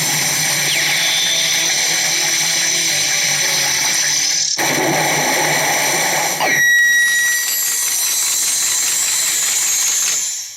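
CR Tsurikichi Sanpei pachinko machine's sound effects: a loud, dense, steady noise that breaks off for a moment about halfway through, turns thinner with a steady high tone, and then cuts off abruptly at the end.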